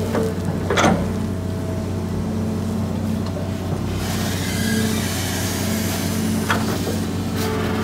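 Hydraulic excavator's diesel engine running steadily under load as the boom swings and dumps sand into a truck. A sharp knock comes about a second in, and another comes late on.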